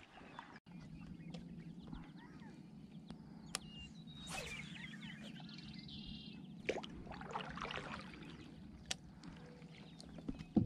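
Kayak being paddled: water swishing and dripping off the paddle blade, with scattered light knocks of the paddle against the plastic hull, over a faint steady low hum.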